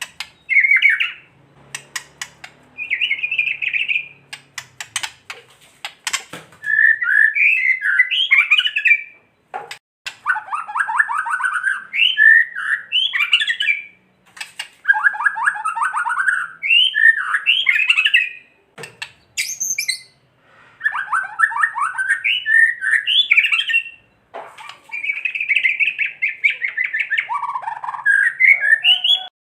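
White-rumped shama (murai batu) singing in loud, rapid phrases mixed with harsh rattling 'kretekan' calls, the agitated sound of an emotional male. Sharp clicks come now and then, several of them in the first six seconds.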